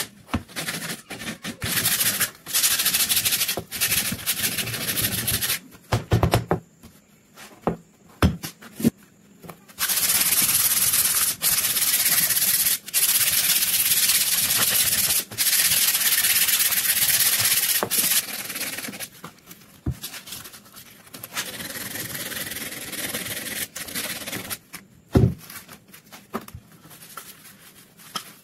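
Sandpaper in a hand sanding block rubbed hard along a wooden rifle stock: long runs of scratchy strokes, broken by a pause with a few knocks a third of the way in. The rubbing is softer in the last third, with a sharp knock near the end.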